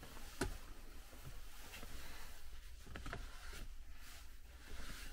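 Faint handling sounds from blotting an ink stain with a cloth and handling an ink remover pen and its cap: light rustling and a few small clicks.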